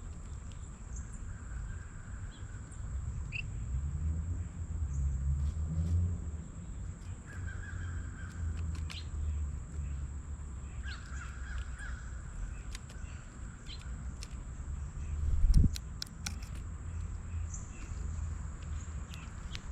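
Crow cawing outdoors, three harsh calls spread over the stretch, with faint short chirps from smaller birds. A low rumble underlies it, and one heavier thump comes about fifteen seconds in.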